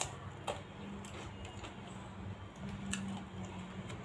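Eating sounds: a metal spoon working gado-gado in a styrofoam food box, making a few light clicks and taps over a steady low hum.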